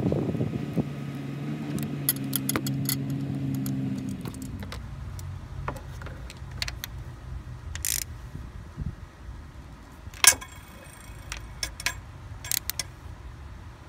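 A scatter of light metallic clicks and jangles from parts and tools being handled in an engine bay, one sharper clink about ten seconds in, over a steady low hum that drops lower about five seconds in.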